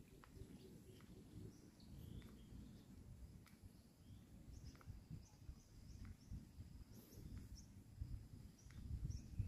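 Faint outdoor ambience: scattered short, high bird chirps over a low, steady rumble.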